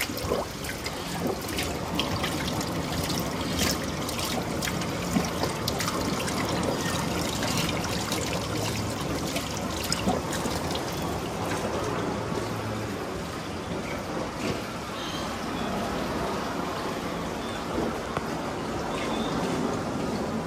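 Small artificial waterfall: water trickling down a rock face and splashing steadily into a pool, with many small drips and splashes throughout.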